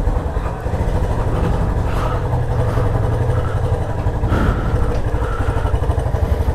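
Motorcycle engine running steadily at low revs as the bike rolls slowly, with a short rise in revs about four seconds in.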